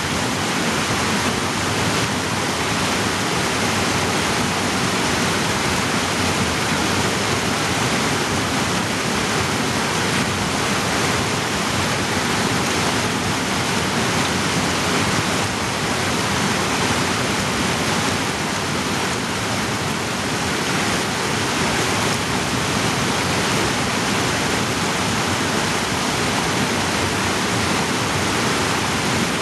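Fast creek rushing and splashing over boulders in a narrow rock gorge: a loud, steady rush of whitewater.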